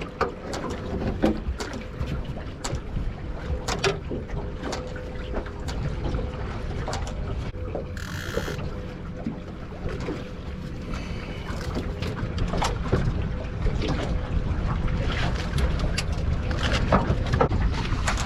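Wind buffeting the microphone as a low rumble, with scattered sharp clicks and knocks throughout, a faint steady hum, and a short hiss about eight seconds in.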